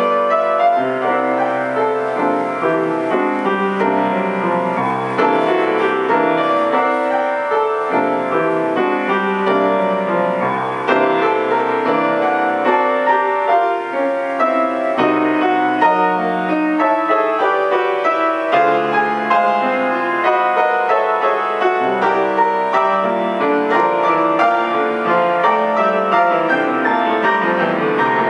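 Grand piano played solo: a continuous passage of many notes, with a bass line under chords and melody, at an even volume.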